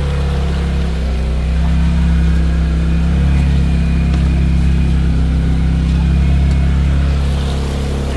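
Can-Am Defender side-by-side's engine running under steady throttle as the vehicle wades through deep trail water; it rises a little about two seconds in and eases off near the end.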